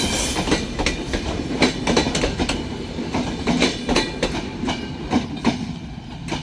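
A train running along the track, its wheels clacking over rail joints above a low rumble, the clatter thinning and growing quieter near the end.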